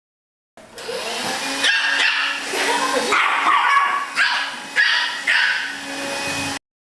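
A dog barking and yipping repeatedly in short, high-pitched bursts, with several sharper barks in the second half. The sound cuts in and cuts off abruptly.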